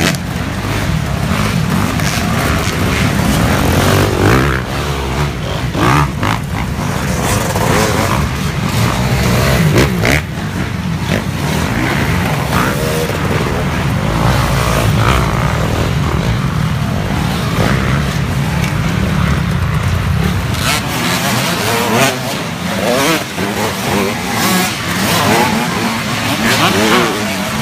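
Several youth mini dirt bikes revving as they pass close by one after another on a dirt woods track, their engines rising and falling in pitch as the riders work the throttle.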